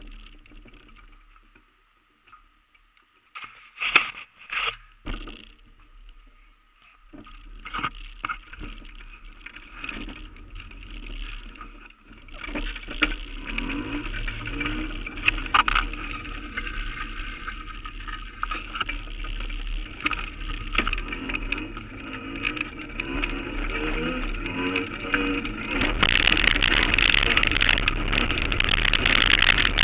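A few knocks and clicks of handling, then steady rolling and street noise from a moving, mount-held camera, which grows louder and harsher near the end as it crosses cobblestones.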